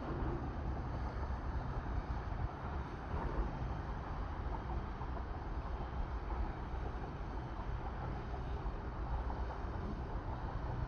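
Boat engines running as boats pass on the water, a steady rumble without a clear pitch, with wind buffeting the microphone.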